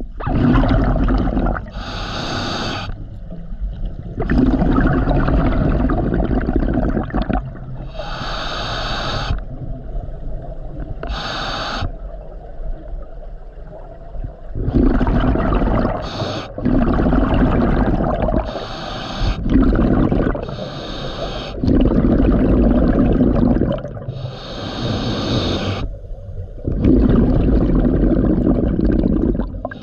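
Scuba diver breathing through a regulator underwater: short hissing inhalations alternate with longer, louder bubbling exhalations, repeating every few seconds.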